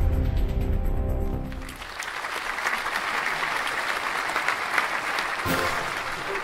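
Music with a low beat that stops about two seconds in, giving way to an audience applauding for several seconds.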